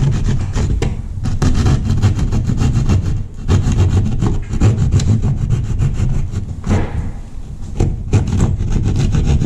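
A saw cutting through drywall in quick, rasping strokes, with two short pauses, to open a sight hole over a buried electrical box.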